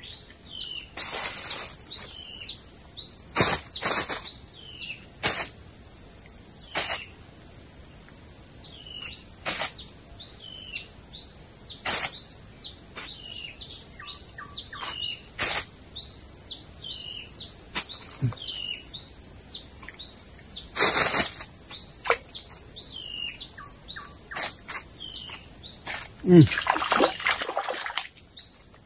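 A steady, high-pitched insect drone from the forest, with a bird repeating a short falling chirp about once a second. Scattered sharp clicks come through, and near the end there is a splash as fish rush at the bait in the stream.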